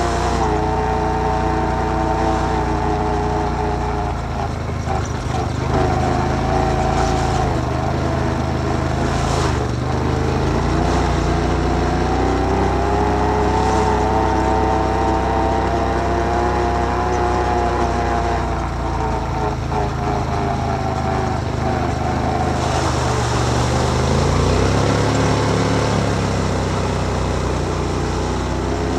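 Can-Am Outlander 1000 ATV's V-twin engine running while riding, its pitch rising and falling slowly as the throttle and speed change.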